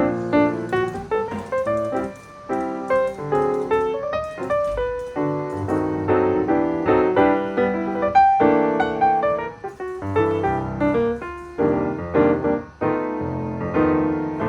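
Background piano music: a steady run of notes with chords.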